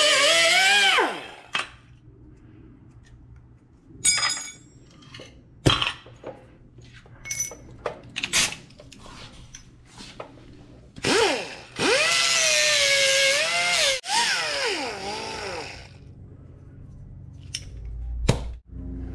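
Pneumatic cut-off wheel whining and winding down as it finishes a cut through a small steel strip, followed by clicks and knocks of metal and tools being handled. About 11 seconds in the air tool runs again for a few seconds with a wavering pitch and spins down, and near the end comes a short sharp burst of air at the hose coupler.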